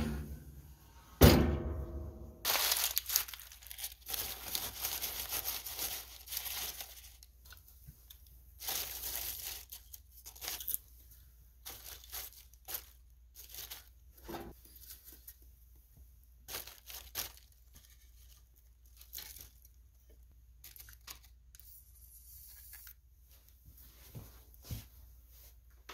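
Wood stove door opened with one loud, ringing metal clank about a second in, then newspaper crumpled and torn while it is packed into the firebox, followed by scattered short knocks and rustles as kindling is laid in.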